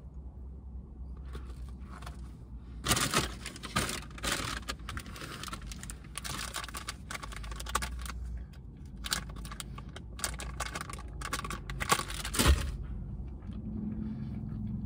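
Paper and plastic wrapping crinkling and rustling as it is handled and unfolded, in dense crackly stretches from about three seconds in until shortly before the end.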